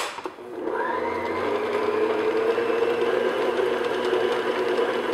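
Electric stand mixer switched on with a click, its motor spinning up within the first second and then running steadily at medium-low speed, the paddle attachment beating butter and sugar in a glass bowl.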